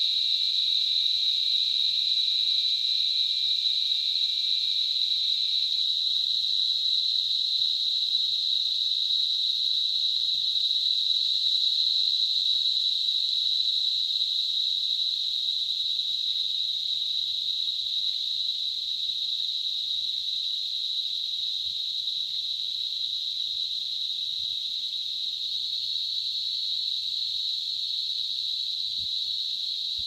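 Cicadas calling in chorus: a steady, unbroken high-pitched drone. A second, lower cicada tone drops out about six seconds in, and the chorus fades slightly over the stretch.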